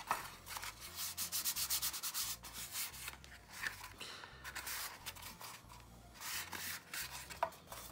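Hands rubbing and pressing cardstock against a small paper box: quick scratchy strokes of paper on paper, a dense run for the first few seconds, then a few shorter bursts.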